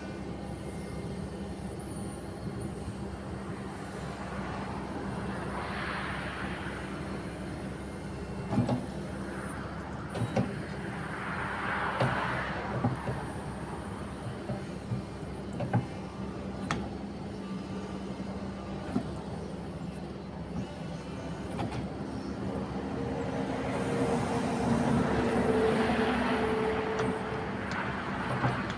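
Kobelco SK140SRLC-3 crawler excavator running with a steady engine hum. A hiss swells and fades three times, and there are a few sharp metal knocks. Near the end a steady whine rises and then falls away.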